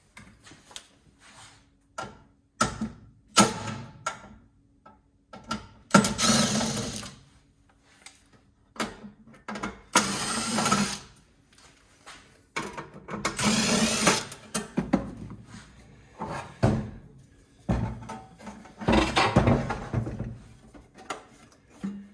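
Hand tools working the pressed-steel housing of a gas instant water heater: scattered sharp metal knocks and clicks, with several scraping stretches of about a second each as the crimped edge is pried at.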